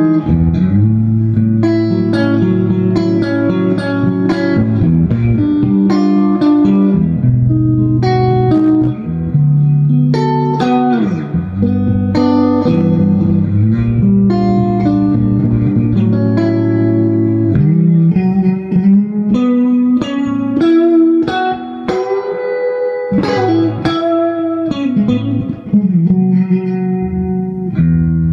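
Electric guitar played loud through a Fender Vibroverb-clone tube amp with a JBL speaker: a continuous run of single notes and phrases with bent notes, heavy in the bass.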